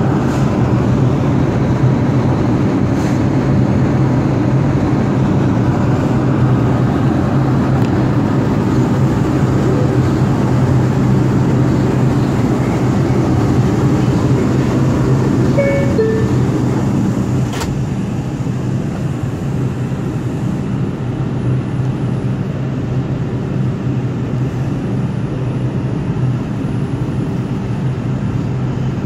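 New York City subway train running in the tunnel, heard from inside the car: a steady rumble of wheels on rail with a low motor hum. A brief faint high tone comes about sixteen seconds in and a single sharp click a second later, and the noise eases slightly after about twenty seconds.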